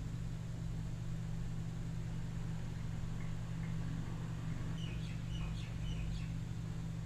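Steady low hum of background room noise, with a few faint high bird chirps between about three and six and a half seconds in.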